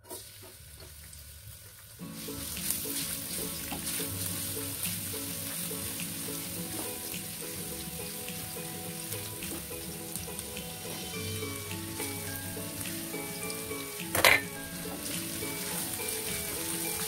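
Chopped garlic frying in hot oil in a non-stick wok, a steady sizzle as it is stirred with a silicone spatula. One sharp knock stands out about 14 seconds in, with background music from about 2 seconds in.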